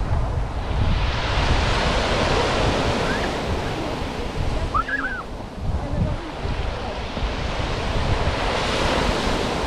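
Small sea waves washing onto a sandy beach, the surf swelling twice, with wind buffeting the microphone as a low rumble underneath.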